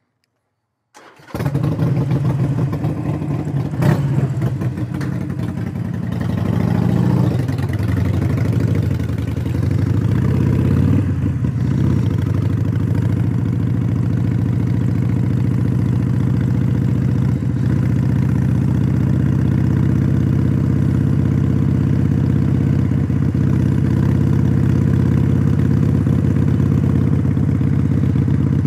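A 2017 Harley-Davidson Iron 883 Sportster's air-cooled V-twin with Vance & Hines Shortshots exhaust and a stage 1 intake and fuel tune starts about a second in. Its revs rise and fall as the bike pulls away, then it runs steadily under way.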